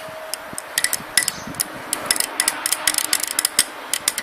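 Thin metal rod stirring a thick hydrogen peroxide paste in a glass jar, clicking and scraping rapidly and irregularly against the glass. The clicks get busier about a second in.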